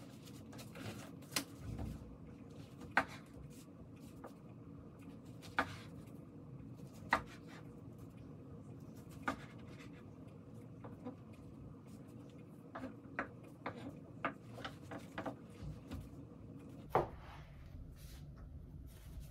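Kitchen knife slicing sushi rolls, its blade knocking on the cutting board in short sharp taps a few seconds apart, then several in quick succession later on.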